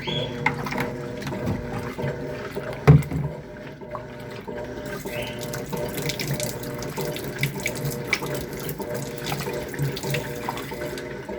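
Electrolux LTC10 top-loading washing machine agitating a full load in deep water: a steady motor hum with irregular sloshing and splashing of the water and clothes in the drum.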